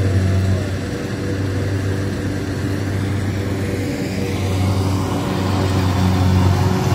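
Engine of rice-harvesting machinery running at a steady speed: a constant low hum with no revving.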